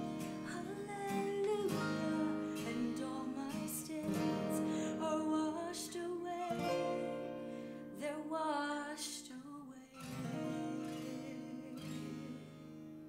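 Closing bars of a worship song: strummed acoustic guitar with a singing voice, fading out near the end.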